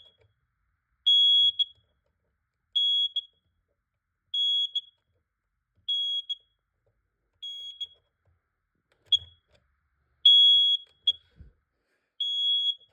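Kidde smoke alarm in alarm after a canned-smoke test: a shrill, high-pitched beep about every one and a half seconds, each followed by a short blip. The beeps grow fainter midway and are loud again near the end.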